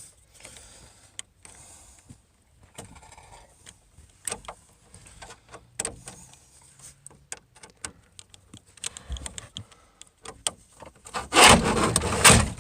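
Scattered clicks, knocks and rubbing from the inside of a van's rear door as its trim panel and parts are worked on by hand. About 11 seconds in there is a loud scraping rattle lasting about a second.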